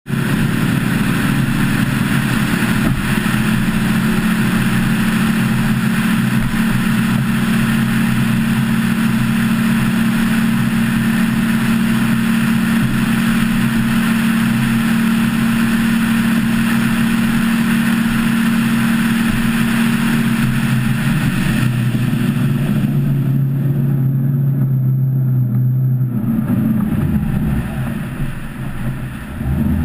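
Cobalt 263's MerCruiser 496 8.1-litre V8 sterndrive running steadily at cruise, with wind and water rushing over the bow-mounted camera. About 21 seconds in the engine note drops as the throttle comes back, and the wind hiss thins out soon after.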